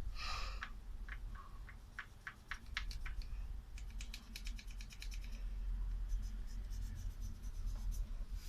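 Small clicks and scratching of hand work on a fan's parts. Scattered sharp clicks come first, then a quick even run of about ten clicks a second around the middle, then fainter quick clicks near the end.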